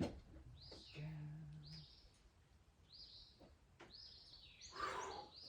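A small bird chirping repeatedly, short high chirps about once a second. A short low hum comes in about a second in, and a brief noisy scrape near the end.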